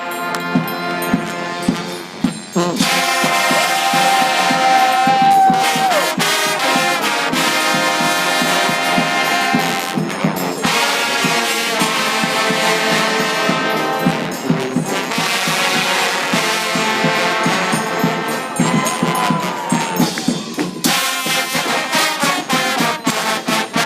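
A trombone choir playing: several trombones sounding together in held chords broken by short, accented notes.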